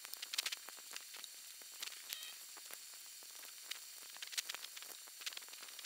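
Faint, scattered small clicks and taps from hands handling a motorcycle fairing, over a steady faint hiss.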